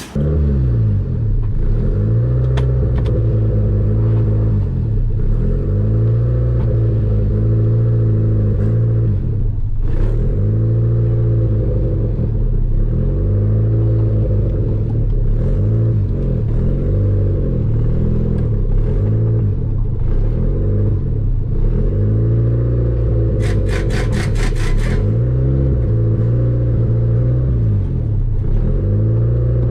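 A vehicle engine idling steadily with a low, even hum. About three quarters of the way in, a quick run of sharp clicks is heard over it.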